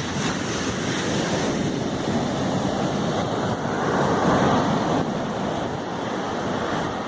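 Sea surf washing and breaking on a beach, one wave swelling up and breaking about four seconds in.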